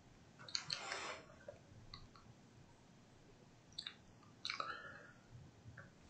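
Mostly quiet room tone broken by a few faint, brief clicks and small rustling or mouth sounds: a short cluster about half a second in, single ticks around two and four seconds, and another short cluster at about four and a half seconds.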